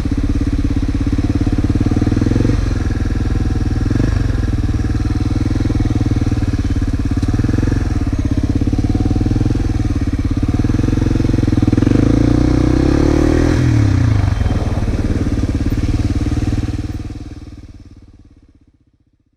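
Honda XR250 Motard's single-cylinder four-stroke engine running steadily, rising and falling in pitch once around 12 to 14 seconds in as it revs. The sound fades away over the last few seconds.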